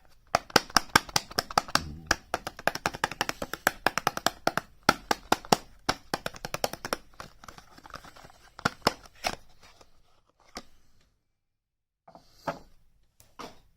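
Hands rapidly tapping and clicking on soap packaging, several crisp taps a second for most of the clip, thinning to a few scattered taps with a short dead-silent gap near the end.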